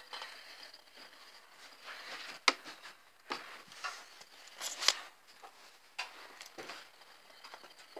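Soft rustling with scattered light clicks and taps. The sharpest two come about two and a half seconds and five seconds in.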